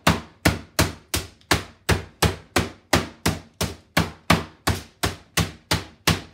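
Meat mallet pounding a butterflied chicken breast through parchment paper on a countertop, flattening and tenderizing it: steady, even strikes at about three a second.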